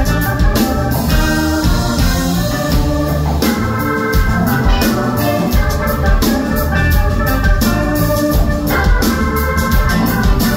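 Live band playing, with organ chords held over a drum kit.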